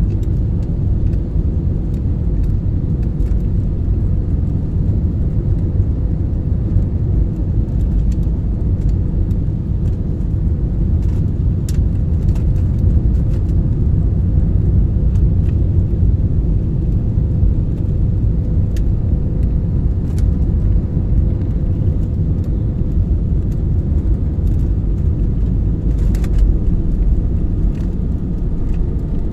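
Steady noise of jet engines and rushing air inside an airliner's cabin on final approach for landing, with a thin steady hum over the low rumble.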